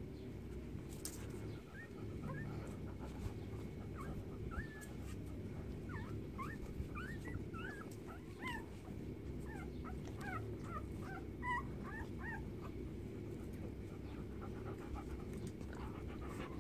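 Young puppies whimpering: many short, high squeaks that rise or fall in pitch, coming thick and fast through most of the stretch, over a steady low background rumble.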